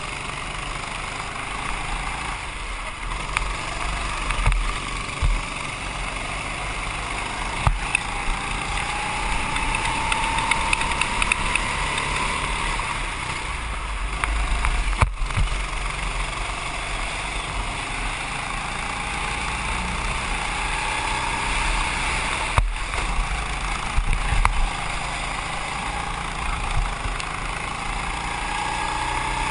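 Go-kart engine running steadily under load while lapping, its pitch rising three times as it accelerates out of corners, heard from on board over the rush of air.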